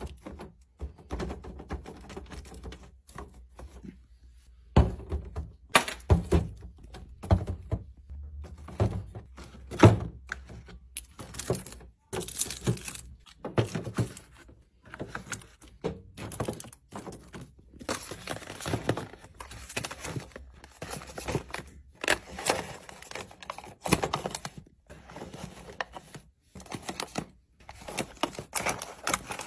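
Packaged snacks (small cardboard boxes, drink cartons and pouches) being set one by one into plastic refrigerator drawers and bins: an irregular run of light taps, clicks and knocks, several a second, with short pauses.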